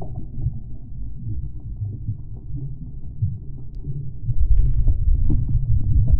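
Muffled underwater sound from a camera held below the sea surface: low rumbling water movement with faint clicks and knocks, growing louder about four seconds in.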